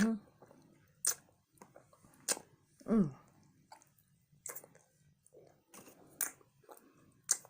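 Close-up eating sounds of someone chewing with novelty false teeth in: mouth smacks and several sharp clicks spread through, with a short falling grunt about three seconds in.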